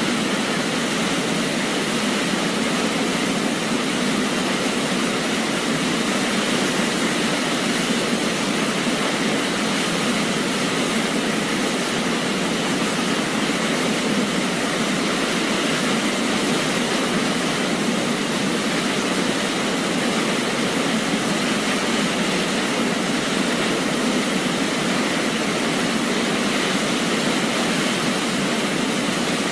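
A waterfall, its water falling in a steady, even rush of noise.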